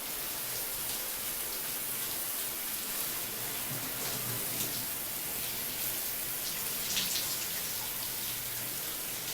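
Shower running: a steady hiss of spraying water, with a slightly louder splash about seven seconds in.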